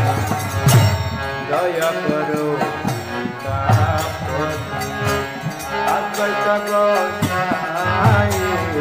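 Bengali devotional kirtan: voices singing a drawn-out melody over drum strokes and the bright, regular clashes of small hand cymbals.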